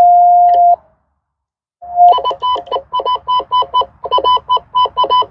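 Baofeng handheld radio sending call-button tone pulses as Morse code: one steady beep about a second long, then a rapid run of short beeps, about five a second, with a brief break around four seconds in.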